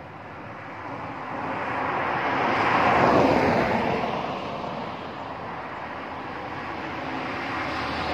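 A road vehicle passes close by, its engine and tyre noise swelling to a peak about three seconds in and then fading. Another vehicle's noise slowly builds near the end.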